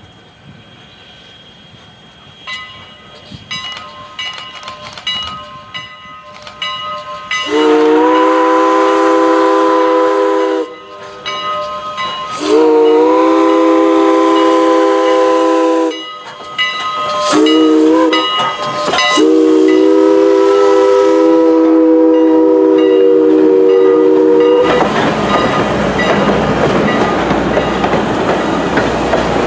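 Steam locomotive's three-chime whistle sounding the grade-crossing signal: long, long, short, long, each blast sliding up into a full chord. Near the end a loud steady rush of the train running takes over.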